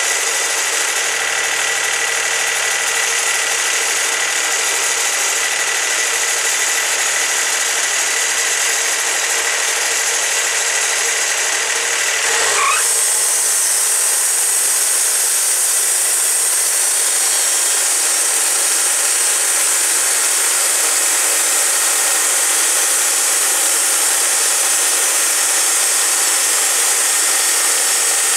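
Wood-Mizer LT40 band sawmill's engine running at idle, then revving up quickly about halfway through as the band blade is brought up to speed. After that the blade runs with a steady high hiss.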